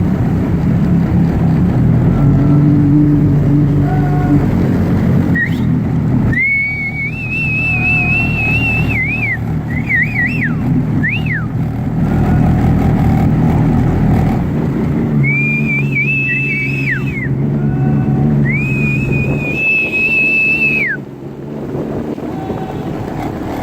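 Boat motor running steadily at low speed through floodwater. A high, wavering whistle-like tone comes in twice, about six seconds in and again around fifteen seconds in, each lasting several seconds with short up-and-down glides.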